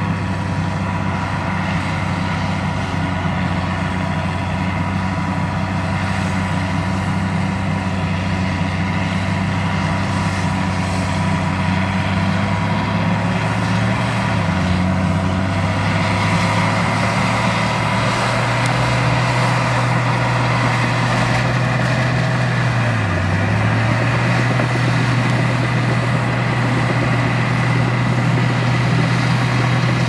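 Heavy diesel construction machinery engine running steadily, its note shifting a few times and dipping briefly about two-thirds of the way through.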